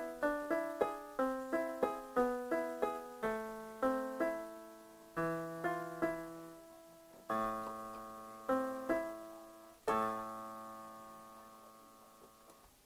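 A nocturne played on an electronic keyboard with a piano sound: an even run of broken-chord notes, then slower, longer chords, the last one struck about ten seconds in and left to ring and fade away as the piece ends.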